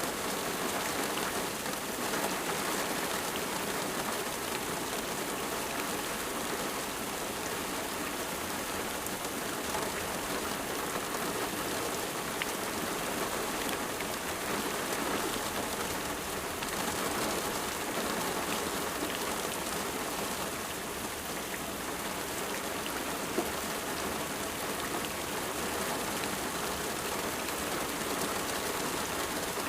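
Steady rain falling and pattering on a surface, with many small drop ticks and no let-up.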